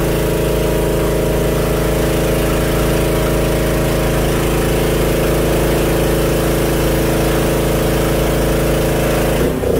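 A motor or small engine running steadily at one constant speed, a drone that stops abruptly near the end.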